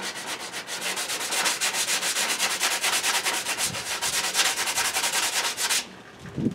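Hand sanding of a hardened melted milk-bottle plastic patch on a plastic duck decoy's hull: quick, even back-and-forth strokes, several a second, that stop near the end.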